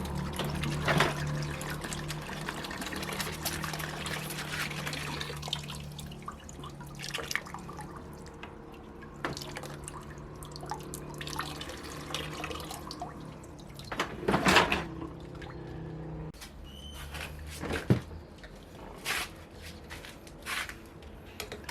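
Engine coolant draining and dripping from the VW Polo's radiator once the lower hose has been worked loose, with a few sharp knocks of tools or parts, the loudest about two-thirds of the way through.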